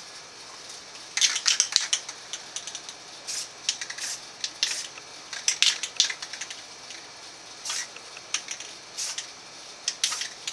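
Aerosol rattle can of camo spray paint hissing in a string of short, quick bursts, some in rapid clusters, as thin lines of paint are laid down.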